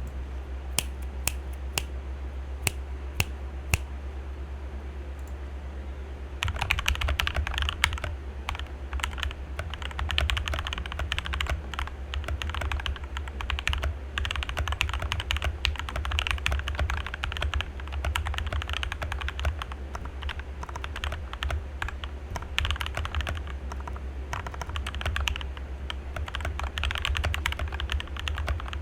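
Typing on an RK61 mechanical keyboard with lubed and filmed Gateron Red linear switches, lubed and clipped stabilizers, and foam, PE-foam and tempest mods. First come a few separate keystrokes. About six seconds in, steady fast typing begins, over a low, steady hum.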